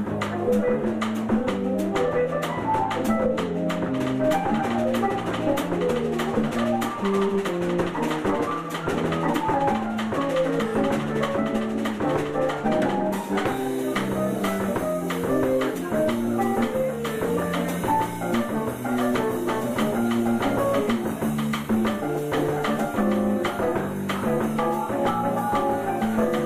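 Keyboard and drum kit playing a tune live: chords and melody over a moving bass line, with a steady, fast ticking beat on the drums.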